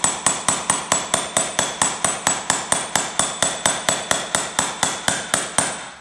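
Steel hammer beating on a steel grommet-setting punch and anvil in a fast, even rhythm of about four blows a second, each with a bright metallic ring, stopping just before the end. The blows are rolling a sail grommet's collar down, which she calls harder near the bottom as the roll gets thicker.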